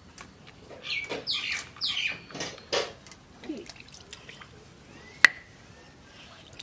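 Several loud squawking calls from chickens in the first three seconds. Later, water is poured and drips onto a wooden chopping block, and a single sharp knock comes about five seconds in.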